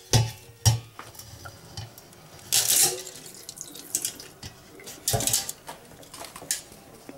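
Metal dog bowl holding water and ice being handled in a sink. Two sharp knocks near the start, then short bursts of water splashing about two and a half seconds and five seconds in.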